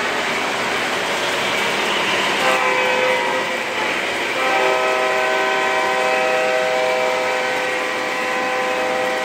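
A model passenger train running on the layout's track with a steady rolling rumble. A multi-note train horn chord comes in about two and a half seconds in and sounds held and fuller from about four and a half seconds on.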